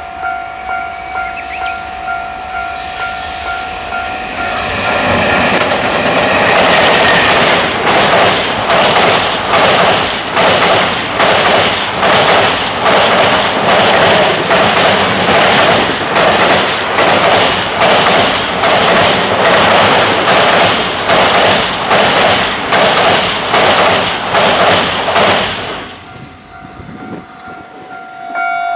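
Fast JR Freight container train crossing a steel girder railway bridge: its wheels clatter over the rail joints in a steady rhythm of nearly two clacks a second. The sound swells as the train arrives and falls away suddenly as the last wagon passes near the end.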